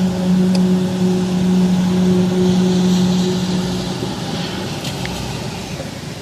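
A loud, steady, low droning hum with fainter overtones over a wash of rumbling noise, the hum stopping about four seconds in while the noise slowly fades. It is one of the unexplained sounds reported from the sky.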